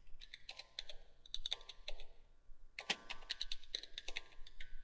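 Typing on a computer keyboard: a quick run of key clicks, a short pause about two seconds in, then another run.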